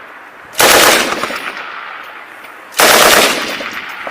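M240B machine gun firing two short bursts, about two seconds apart, each followed by a long echoing tail.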